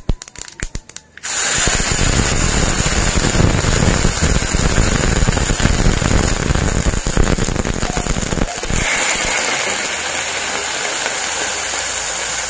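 Hot tempering oil with sesame and mustard seeds in a frying pan crackling, then about a second in bursting into loud sizzling as water is poured in. The sizzle eases to a steadier hiss and bubbling about two-thirds of the way through as the water starts to boil.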